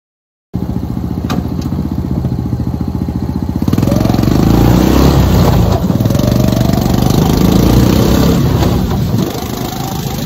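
Massimo Mini Jeep's 125cc air-cooled engine running, cutting in about half a second in. From about four seconds in it is louder as the jeep is driven, its pitch rising and falling with the throttle.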